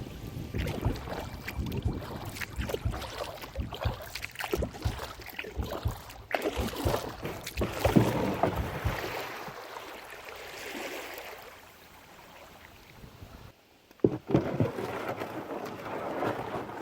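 A kayak being paddled on a river: water splashing with many sharp knocks on the hull, easing into a quieter stretch of running water about two-thirds through, then more splashes and knocks.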